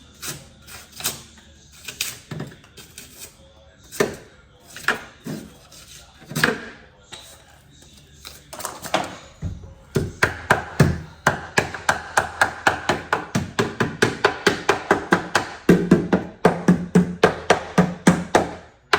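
Hand-tool work on a wooden door: a few scattered knocks and scrapes, then from about ten seconds in a fast, steady run of sharp strikes, about four to five a second.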